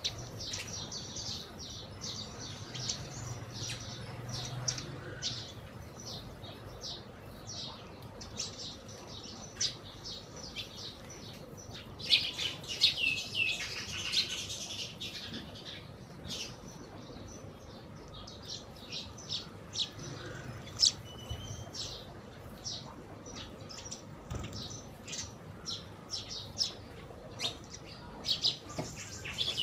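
House sparrows chirping: short, sharp chirps on and off, with a dense burst of rapid chirps falling in pitch about twelve seconds in and another flurry near the end.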